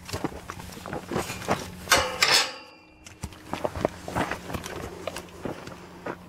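A metal field gate clanking and rattling about two seconds in, its ringing dying away within a second, amid scattered knocks and rubbing as the camera is jostled and nosed by the horses.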